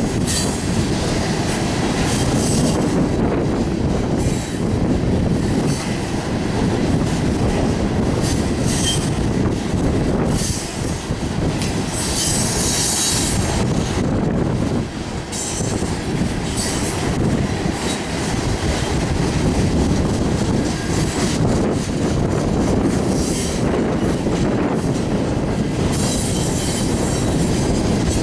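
Cars of a loaded coal train rolling past: a steady heavy rumble and wheel clatter on the rails, with short spells of high-pitched wheel squeal several times.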